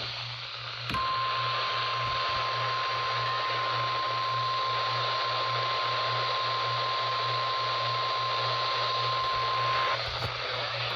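NOAA Weather Radio 1050 Hz warning alarm tone: one steady pure tone starting about a second in and cutting off about ten seconds in, the signal that a warning message is about to be read. It plays over steady radio static hiss and a low hum.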